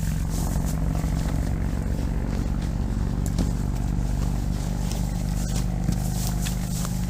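Steady low rumble of busy highway traffic, with a few light clicks and rustles over it.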